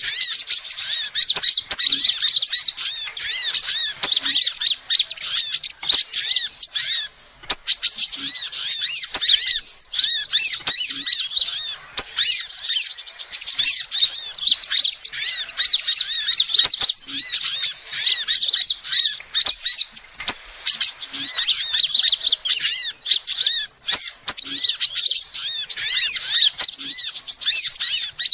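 Female sunbird calling: a fast, unbroken stream of high, sharp chirps, pausing briefly a few times.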